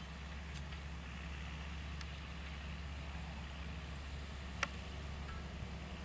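John Deere 6920S tractor's six-cylinder diesel engine running steadily under load while pulling front- and rear-mounted ploughs through grassland, a low steady drone. A single sharp click comes about four and a half seconds in.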